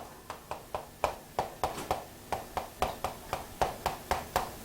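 A quick, even series of light taps or clicks, about five a second.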